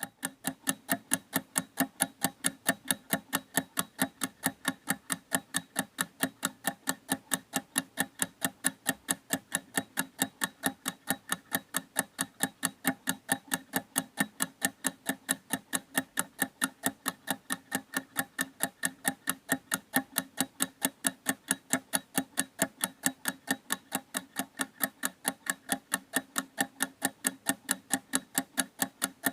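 Clock ticking fast: a rapid, perfectly even run of sharp ticks, several a second, that never changes pace.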